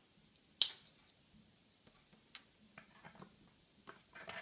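A sharp click about half a second in as the power cable's plug is pulled from the back of a first-generation Apple TV, followed by several fainter clicks and taps of cable plugs being handled at its rear ports.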